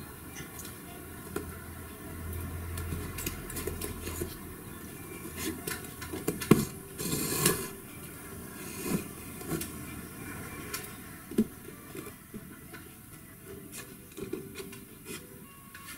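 Upholstery hand work on a wooden armchair frame while its springs are lashed with twine: scattered light knocks and taps, with a louder rustling scrape about seven seconds in.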